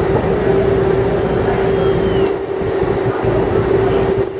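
A loud, steady mechanical hum held on one pitch, over a low rumbling noise.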